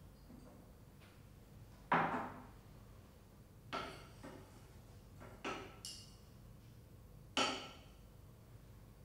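Glassware knocking during a titration: a glass conical flask set down and handled on the white tile at the base of a burette stand, about six sharp knocks with a brief ring, the loudest about two seconds in.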